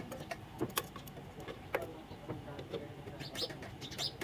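Birds chirping in quick short calls, strongest in the last second, with several sharp clicks in the first two seconds.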